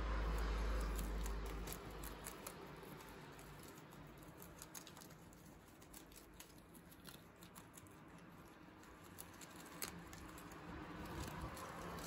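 Guinea pigs munching crisp lettuce leaves: a quick, uneven run of small crunching and snipping clicks. A low rumble sits under the first couple of seconds.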